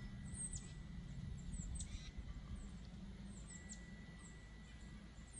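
Small songbirds chirping faintly: short, high, downward chirps repeating a few times a second over a low steady hum.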